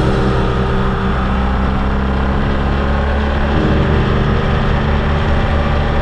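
Motorcycle engine running steadily on the open road, with wind and road noise; the engine note changes about three and a half seconds in.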